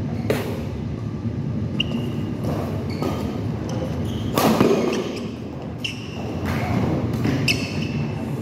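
Badminton rally: rackets repeatedly striking the shuttlecock with sharp hits, the loudest about halfway through, and shoes squeaking briefly on the court floor, over a steady background noise in a large hall.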